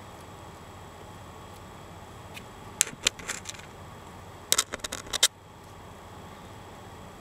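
Plastic scoubidou lanyard strings being handled and pulled tight into a knot. This gives two short flurries of sharp clicks and snaps, the second a little less than two seconds after the first.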